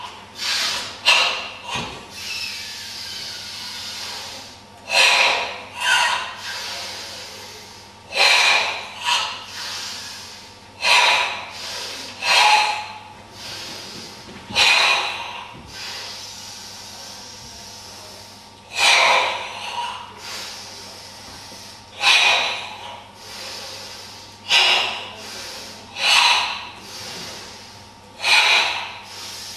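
Forceful, hissing breathing of a karateka performing the Goju-ryu kata Tensho: short sharp breaths, often in pairs, every one to three seconds, with longer slow breaths between them, the controlled ibuki breathing that drives each tense hand movement.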